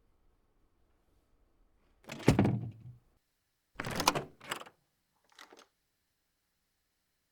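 A door shutting with a heavy thunk about two seconds in, followed by a shorter clatter of two sharp knocks and then a faint click.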